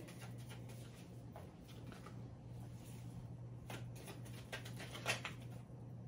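Tarot cards being shuffled by hand: faint papery rustling with a few short, sharp card snaps, over a steady low hum.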